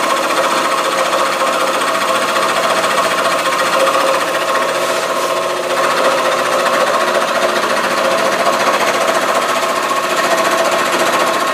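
Table saw running steadily, a constant-pitched motor and blade hum over a noisy hiss.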